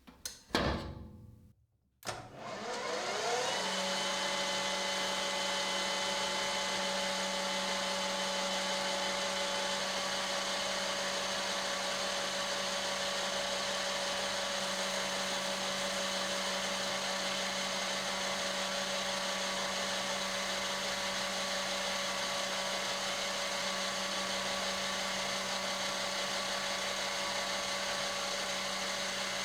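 Electric power tool switched on about two seconds in. Its motor spins up with a rising whine, then runs at a steady speed with a constant hum.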